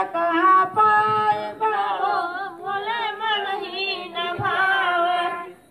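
A woman singing a Hindi devotional song to Shiva into a microphone, with long, wavering held notes; the singing stops just before the end.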